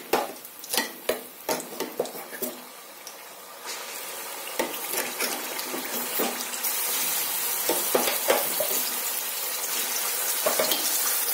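Onion, garlic and green chilli paste sizzling as it fries in hot mustard oil in a kadhai, with a spoon clinking and scraping against the pan in the first couple of seconds. The sizzle grows louder about four seconds in and louder again midway.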